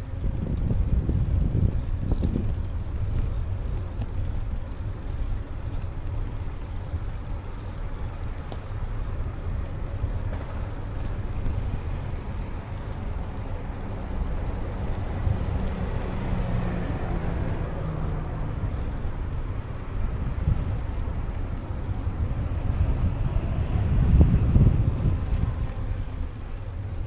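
City street traffic heard from a moving bicycle: cars passing close by in the adjacent lane, their tyre and engine noise swelling and fading, over a steady low rumble of wind on the microphone. The loudest pass comes near the end.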